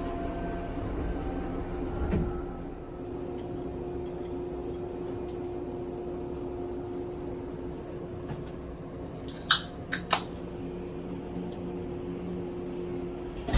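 Cabin of a stationary Izukyu 2100 series train: a steady hum of the train's on-board equipment with one constant tone, a dull thump about two seconds in, and three sharp clicks a little before the end.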